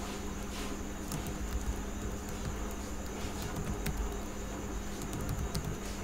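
Computer keyboard keys clicking in scattered keystrokes as a name is typed, with a quick run of strokes near the end, over a steady background hum and hiss.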